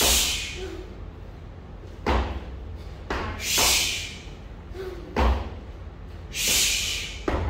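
One-arm kettlebell overhead reps: a dull thud comes roughly every three seconds as the bell and lifter land, and each time the kettlebell is driven overhead there is a sharp, forceful hissing exhale through the mouth.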